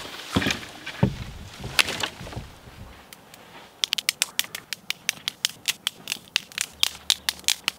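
A few separate wooden knocks, then from about halfway through a fast, even run of sharp clicks, roughly four or five a second: a knife shaving thin curls off a stick to make feather sticks for fire-lighting.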